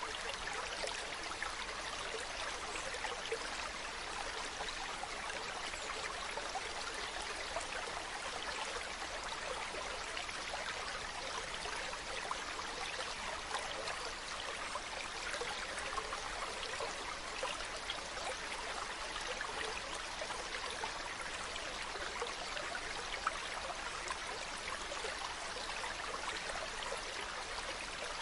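Mountain stream running over rocks: a steady babbling rush of water.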